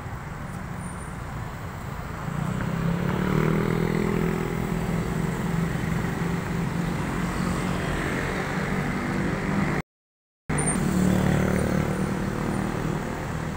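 A motor vehicle's engine running steadily, a low hum that grows louder about two seconds in. The sound cuts out completely for a moment about ten seconds in.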